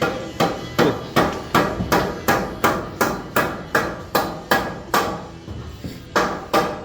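Hammer blows on a construction job, struck at a steady pace of about three a second, each with a short ring. There is a brief pause near the end, then two more blows.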